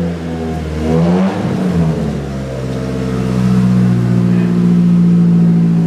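Nissan 240SX's SR20 four-cylinder engine running with the hood up: revved up and down a couple of times, then held steady at a raised engine speed.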